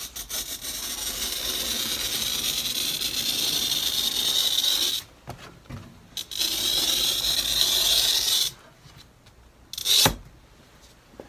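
Glass cutter's wheel scoring a pane of window glass along a straightedge, pressed down hard: a long even hiss for about five seconds, a brief break, then about two more seconds of the same. A short, loud scrape follows near the end.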